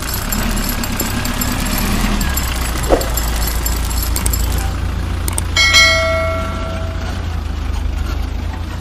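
A steady low rumble runs under a short whoosh about three seconds in. Just past halfway come a mouse click and a bright bell ding that rings for about a second, a subscribe-button sound effect.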